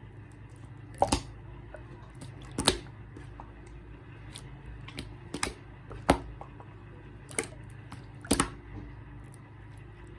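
Clear slime being squeezed and pressed by hand, giving irregular sharp pops and clicks one to two seconds apart over a low steady hum.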